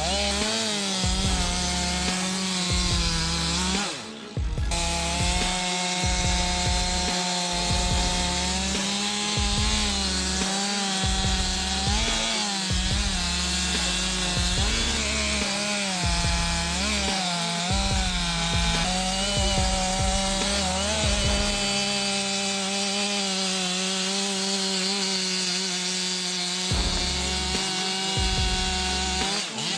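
Two-stroke chainsaw running at high revs while cutting wood, its pitch dipping and recovering again and again as the bar loads up in the cut. The sound drops out briefly about four seconds in.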